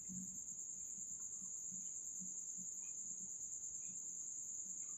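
A faint, steady high-pitched tone, with a few soft faint ticks over a low background hum.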